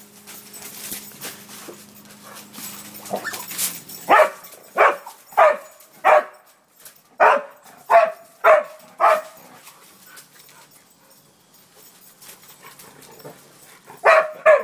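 A dog barking: about eight barks in two quick runs of four starting about four seconds in, then a pause, with barking starting again near the end.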